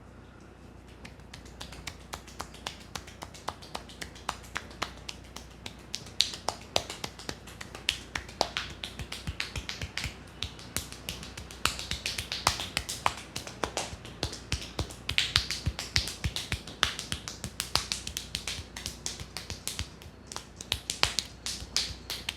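Rapid, uneven clicks and slaps of a barber's hands and fingers working over a client's head in an Indian head massage. They start about a second in and grow louder and denser from about six seconds in.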